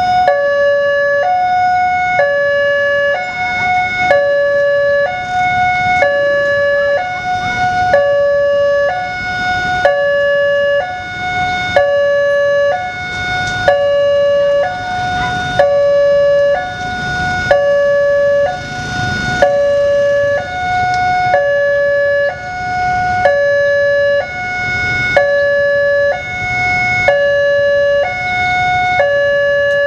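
Railway level-crossing warning siren sounding continuously, alternating between two tones about once a second in a steady hi-lo pattern.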